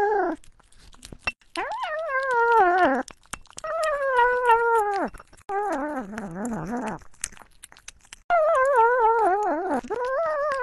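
An animal whining in a run of long, wavering cries, each a second or more, the pitch wobbling and mostly rising then falling, with faint clicks between the cries.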